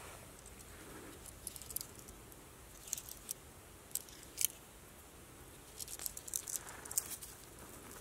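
Scattered light crackles and rustles of dry leaves and twigs on the forest floor as someone shifts about close by, coming more thickly near the end.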